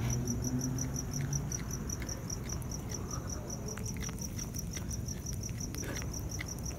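Cricket chirping steadily in an even, rapid rhythm, with faint wet crunching clicks of a cat chewing a rat.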